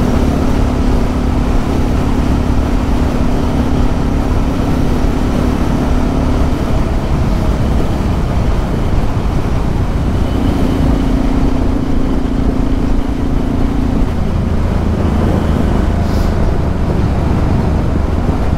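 Yamaha MT-03 660's single-cylinder engine running while riding, buried in heavy wind rush on the microphone. The engine note fades out about a third of the way in, comes back just past the middle, then settles lower near the end.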